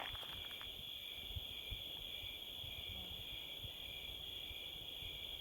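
Crickets trilling steadily in an unbroken high drone, over a low, irregular rumble on the phone's microphone.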